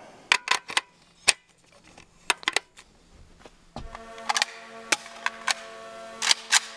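Light metallic clicks from handling as a suppressor is threaded onto the rifle. Then, from about four seconds in, several sharp cracks roughly half a second apart: suppressed shots from a Zastava M92 7.62x39 AK pistol fitted with an Omega 9K suppressor, over a steady ringing tone.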